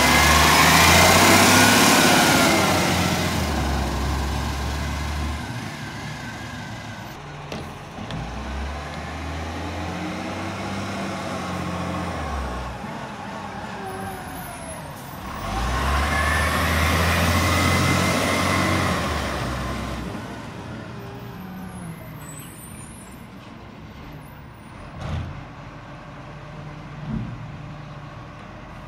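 Diesel side-loader garbage trucks driving past. One pulls away close by, then another approaches and passes loudly about fifteen seconds in, its engine pitch rising and falling through gear changes, and fades as it drives off. Two short knocks come near the end.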